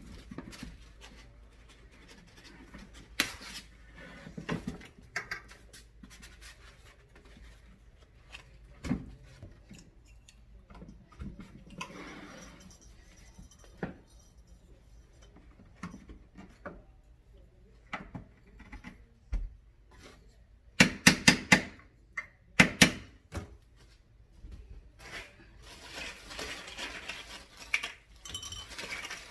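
Handling sounds from assembling a fabric shoe rack: scattered clicks and knocks of its hard plastic parts, with a burst of loud clacks about two-thirds of the way through and rustling near the end.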